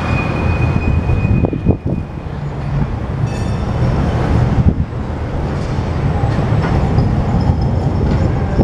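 Loud, steady low rumble of a tram and street traffic rolling past, with a thin high whine for about the first two seconds.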